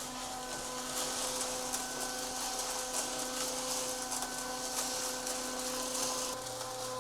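Small electric concrete mixer running steadily with a constant motor hum, its drum churning a batch of bagged concrete mix with a gritty hiss.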